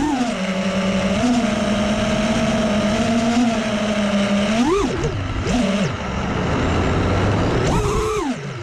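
FPV drone's electric motors whining, holding one pitch for the first few seconds, then sweeping sharply up and down in pitch several times as the throttle is punched and cut.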